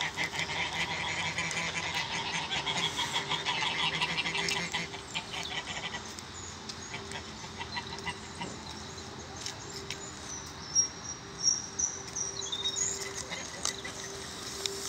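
A group of domestic geese calling in a dense, rapid chatter for about the first five seconds, then falling quieter. A small bird sings high notes from about ten seconds in.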